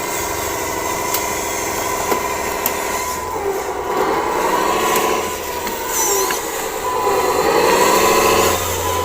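Motor of a radio-controlled model vehicle running, its whine rising and falling in pitch twice as it speeds up and slows, over a thin steady high tone.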